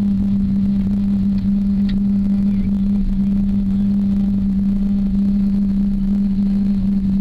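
Steady cabin drone inside a Boeing 777-200 on the ground: the jet engines and air system running at low power, with a strong, constant low hum over a broad rumble.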